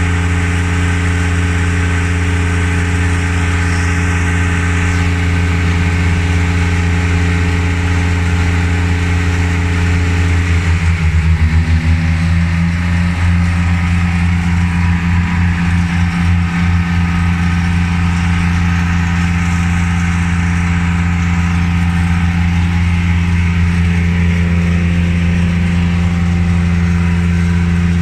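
An engine running steadily. About eleven seconds in its note rises slightly and the sound wavers and pulses for several seconds, then settles into a steady run again.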